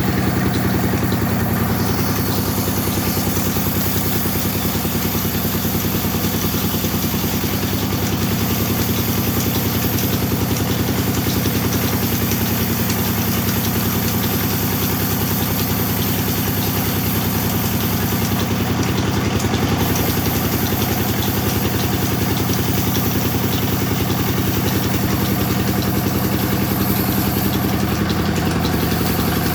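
Sawmill machine running steadily with a continuous low motor hum, its pitch shifting slightly now and then.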